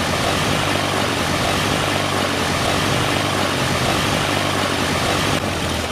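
Sound effect of a propeller airplane engine running steadily: a loud, even drone with a low hum underneath.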